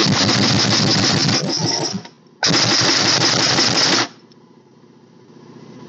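Large pneumatic impact wrench hammering on the nut at the end of a hydraulic cylinder rod, in two bursts of about two seconds each, as it tries to break the stubborn nut loose. From about four seconds in, the shop air compressor runs, its hum slowly rising as it charges back up.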